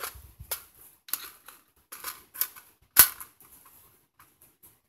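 AR-15 rifle being handled: a run of sharp metallic clicks and clacks as the magazine and action are worked, then one louder clack about three seconds in.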